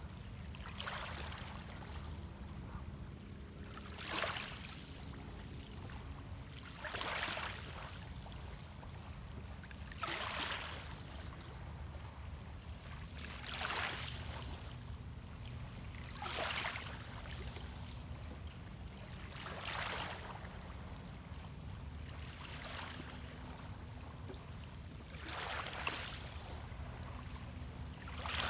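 Small waves lapping at the shoreline about every three seconds, each a short wash of splashing, over a steady low rumble.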